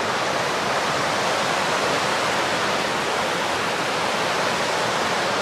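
Fast mountain creek rushing over rocks in whitewater rapids: a steady, unbroken rush of water.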